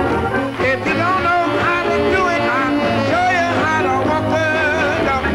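A man sings lead on an upbeat 1960s rhythm-and-blues song, with a backing band playing under his voice.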